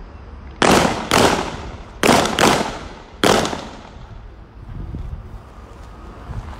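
Five gunshots on an outdoor firing range: two quick pairs about half a second apart, then a single shot about a second later, each crack trailing off in a short echo.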